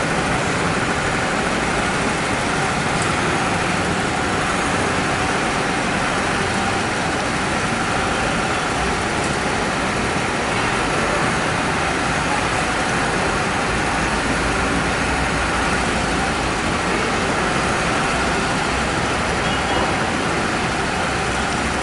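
Steady, even background noise of road and rail traffic with no single event standing out.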